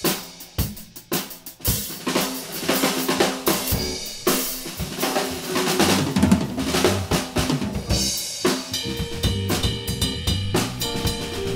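Live band playing with the drum kit to the fore: kick, snare, rimshots and hi-hat in a busy groove with fills. Keyboard and electric guitar chords come in more strongly about eight seconds in.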